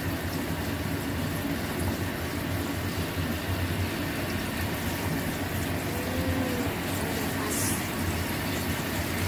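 Cornstarch-thickened sauce bubbling in a small pot on a gas burner and being stirred with a plastic spatula, over a steady low rumble.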